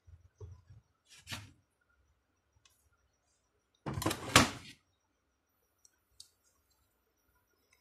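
Alternator parts being handled on a concrete floor: a few light knocks in the first second and a half, then a louder clatter of hard parts about four seconds in as the rectifier assembly is set down, and a couple of faint clicks after.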